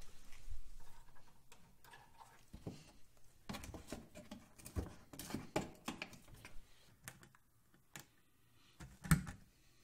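Irregular light clicks, taps and rustles of hands handling the plastic fog light housing and fender liner behind a pickup's front bumper, with a sharper knock near the end.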